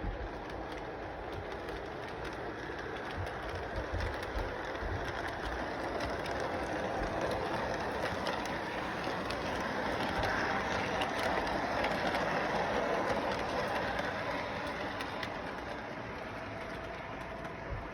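A train running along its track, a steady clatter with many small clicks that grows louder as it comes closer, loudest a little past the middle, then fades.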